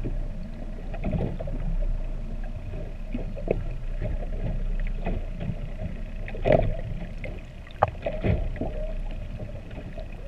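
Humpback whale song heard underwater: a long held moan with short sweeping calls over it, the loudest past the middle, over a steady low rumble of water on the camera housing.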